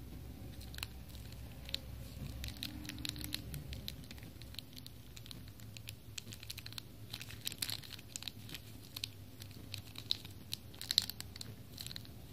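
Thin clear plastic packet crinkling and crackling as fingers squeeze and turn it, in irregular clusters of small crackles, loudest near the end.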